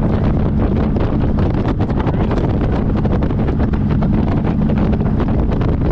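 Motorcycle engine running steadily at road speed under heavy wind buffeting on the microphone.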